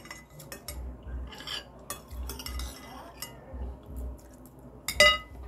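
Metal spoons scraping and clicking against glass plates and bowls as two people eat, with one sharp, ringing clink about five seconds in.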